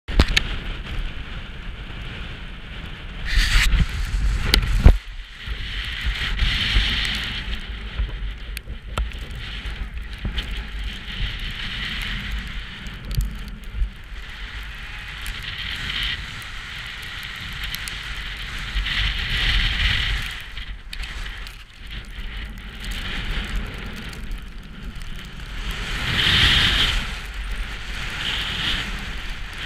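Wind rumbling and crackling on an action camera's microphone, with sharp knocks and rustling from the camera being handled, the loudest knocks about four to five seconds in. Near the end, skis scraping over snow.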